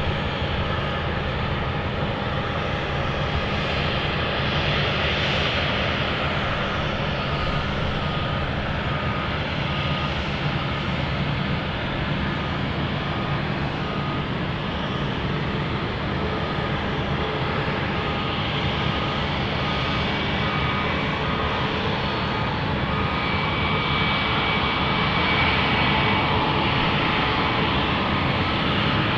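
Airbus A319-132 jet airliner's IAE V2500 turbofan engines running steadily: a continuous rumble with several steady whining tones over it, growing a little louder near the end.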